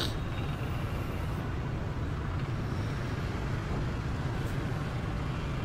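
Steady city street traffic noise heard from a moving vehicle: an even, low rumble of engines and tyres, with no single event standing out.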